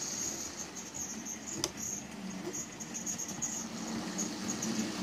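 Lima OO-gauge model Class 117 three-car diesel multiple unit running along sectional track: a high-pitched, flickering whine from the model's motor and wheels over a low rolling rumble, with a single sharp click about one and a half seconds in.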